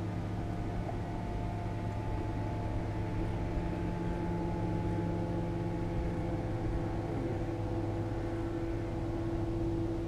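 Steady motor hum from the boat, an even drone with several held tones that slowly shift, over a light hiss of wind and water.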